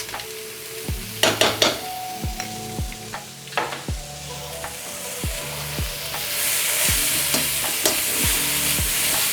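Sliced bell pepper and onion sizzling in a hot frying pan as they are stirred, with a few sharp scrapes of the utensil against the pan; the sizzle grows louder about six seconds in. Background music with a steady beat runs underneath.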